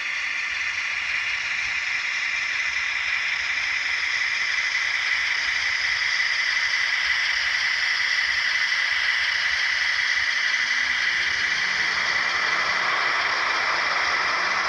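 H0-scale model train, led by a Viessmann Unimog rail vehicle, running along the layout track with its wagons: a steady, even whirring hiss that grows slightly louder as it goes.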